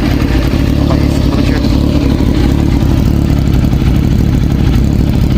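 Motorcycle engine idling steadily through an aftermarket exhaust, with faint voices in the background.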